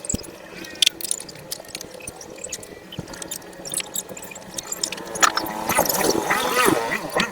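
Scattered metallic clicks and knocks of tools and small engine parts being handled while a scooter's cylinder head is opened to reach the worn camshaft bearing, with a louder stretch of wavering whine about five seconds in.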